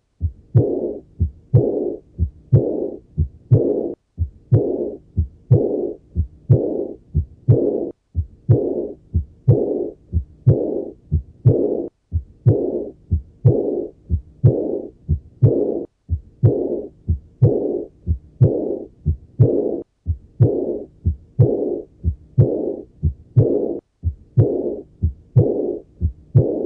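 Recorded heart auscultation of severe aortic regurgitation. Each beat has its heart sounds, then a systolic ejection murmur, then an early-to-mid diastolic regurgitant murmur, repeating evenly beat after beat.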